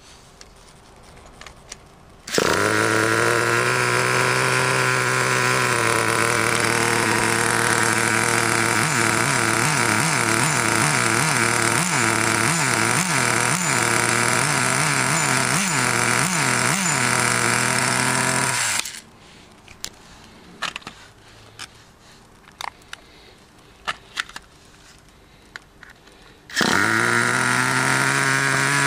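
Traxxas TRX 2.5 two-stroke nitro engine in a T-Maxx starting up and running, with a stretch of quick revs about twice a second in the middle. It stops abruptly, then starts again near the end.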